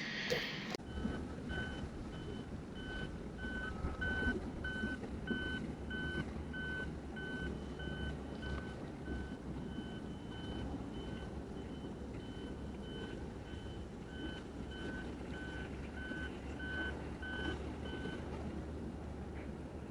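Vehicle reversing alarm beeping: short, evenly spaced beeps at a single pitch, a little over two a second, stopping near the end, over a steady low engine or traffic rumble.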